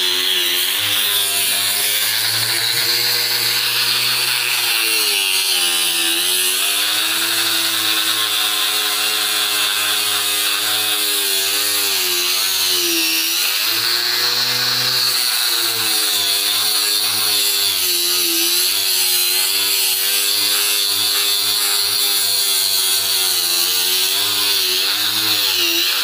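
Electric angle grinder with a sanding disc running continuously against a wooden tabletop: a steady motor whine over the hiss of the disc abrading the wood. The pitch wavers and dips now and then as the disc bites.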